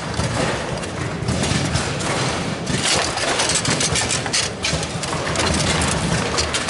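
Foosball match in play: sharp clacks of the ball and rods against the figures and table walls as the players pass and shoot, over a steady low hum and the din of a busy hall.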